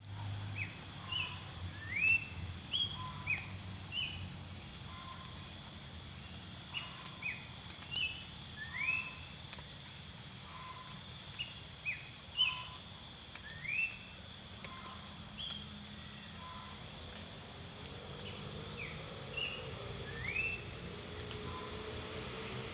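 Wild bird giving short, quick upward-sweeping whistled calls, repeated irregularly every half second to second, over a steady high drone of insects. The calls thin out after about sixteen seconds.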